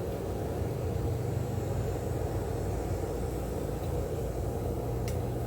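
Gas forge burner running with a steady low rumble. A single light click near the end.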